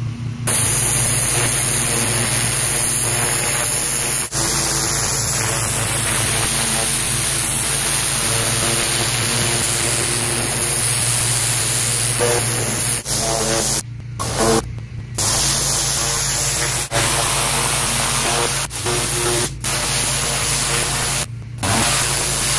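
Pressure washer wand blasting a high-pressure water jet onto a concrete driveway: a steady, loud hiss of spray with a steady low hum underneath. The spray breaks off briefly a few times in the second half.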